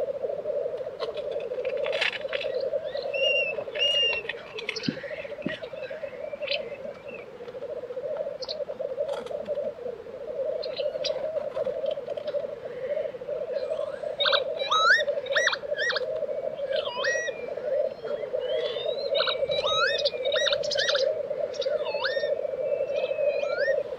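Black grouse cocks' continuous bubbling, rolling lek song, with a hissing call now and then. Short whistled notes of other birds sound over it, growing busier about halfway through.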